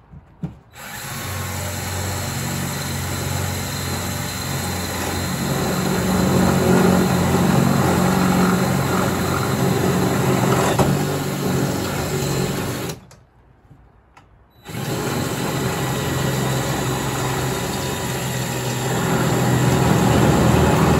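Power drill boring a quarter-inch hole through a kayak outrigger cross tube and its L-bracket flange. It runs steadily for about twelve seconds, stops for a second or two, then drills on.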